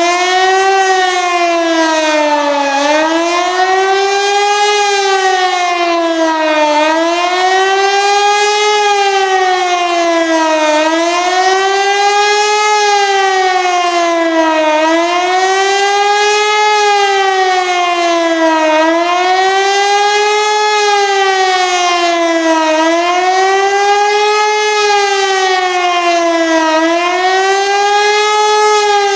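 Pneumatic HLS273 compressed-air high-performance civil-defence siren sounding the German "Warnung" signal. Just started up, it wails in a slow rise and fall about every four seconds.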